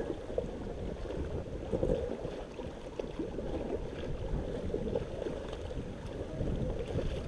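Paddles dipping and splashing as a crew paddles an inflatable raft forward on a river, with wind rumbling on the microphone.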